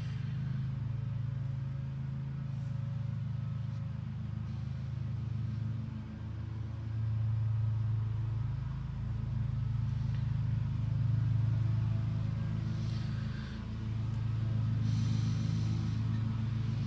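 A steady low mechanical hum and rumble, swelling and easing every few seconds.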